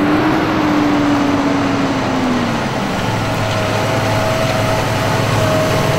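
Large tractor engine working under load as it pulls a Claydon tine drill into the stubble, running without seed to level compacted ground. Its note holds, then drops about two seconds in. From about three seconds in it settles into a steady hum with a higher whine on top.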